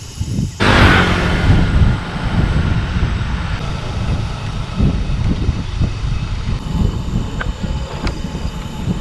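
Cicadas calling loudly, starting abruptly about half a second in as a dense, buzzing, train-like drone with a piercing high band, over a low, uneven rumble.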